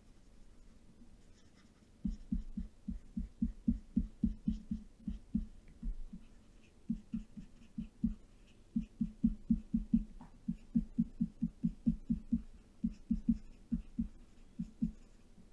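Soft low thumps in quick irregular runs of about three or four a second, starting about two seconds in, with faint light ticks above them.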